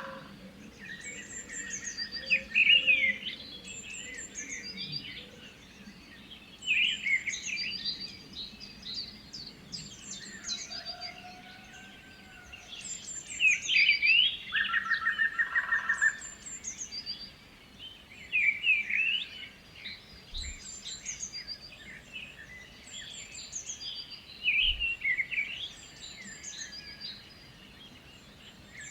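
Several songbirds singing and chirping over one another in a morning chorus, with short trills and whistled phrases coming in bunches every few seconds.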